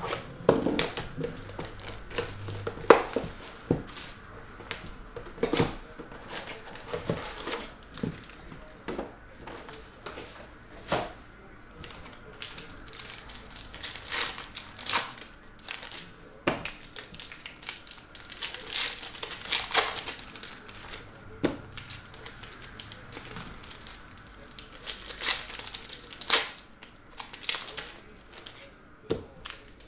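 Foil trading-card packs being torn open and handled: wrappers crinkling and tearing in short irregular rustles, with sharp clicks and taps of cards and packaging on the table.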